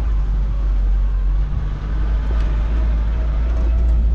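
Off-road vehicle's engine running with a steady, heavy low rumble.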